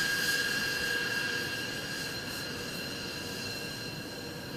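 B-2 Spirit stealth bomber's four General Electric F118 turbofan engines whining as the aircraft taxis past, a steady high turbine whine over a rushing hiss, loudest at first and slowly fading as it moves away.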